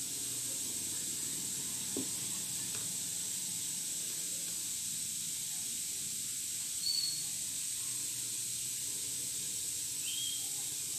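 Steady background hiss with no clear activity sound, a faint tap about two seconds in, and two brief faint high chirps near the end.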